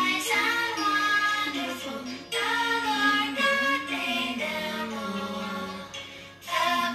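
Prayer song: a voice singing a melody over musical accompaniment, in phrases with short breaks about two seconds in and near the end.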